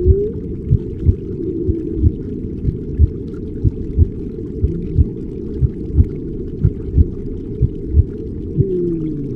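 Muffled, deep relaxation sound track: a slow double-beat thump about once a second, like a heartbeat, under whale-like moans that glide in pitch, one rising just at the start and one falling near the end.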